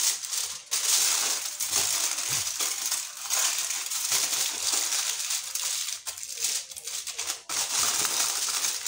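Aluminium foil crinkling and crackling as it is pressed and crimped around the sides of a pan, with a few brief pauses.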